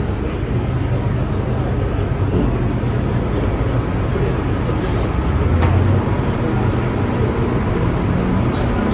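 MTR M-train electric multiple unit running through a station, a steady low rumble of wheels on rail and running gear heard from inside the car by the doors.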